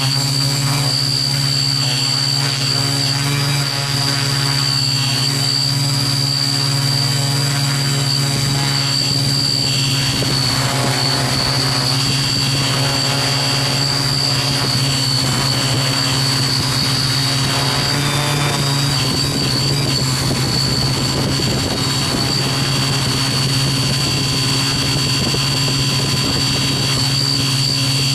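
Small quadcopter drone flying, its motors and propellers giving a steady hum with a constant high whine over it.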